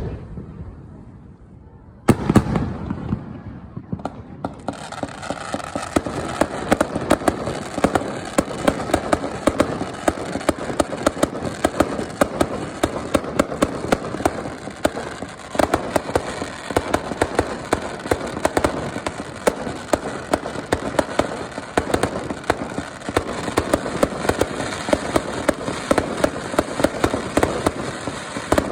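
Fireworks bursting: a loud bang about two seconds in, then a dense, continuous crackle of many rapid small pops.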